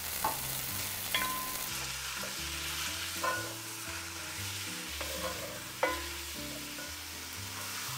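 Marinated chicken strips sizzling in hot oil with garlic in a pot, stirred with a wooden spatula that knocks against the side of the pot a few times.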